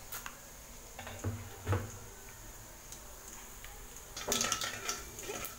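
A few light knocks and clicks in an aluminium kadai where mustard seeds, urad dal, cumin and fenugreek are frying in a little hot oil, with a short rattling stretch about four and a half seconds in.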